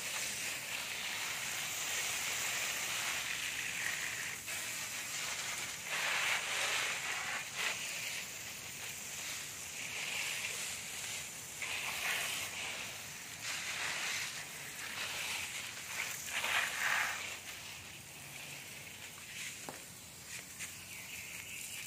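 Garden hose spraying water onto leafy potted plants: a steady hiss of spray that swells and fades as the stream moves across the leaves, growing quieter near the end.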